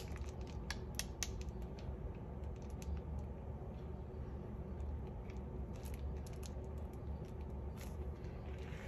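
Scattered light clicks and taps from handling a plastic piping bag and a small dessert cup on a stone countertop while whipped cream is piped, over a low steady hum.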